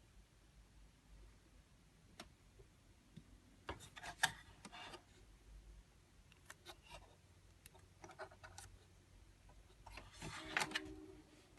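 Quiet, scattered clicks and short clattering bursts from a Hanabi pachislot token slot machine: a cluster about four seconds in, a few more around seven and eight seconds, and a longer clatter near the end.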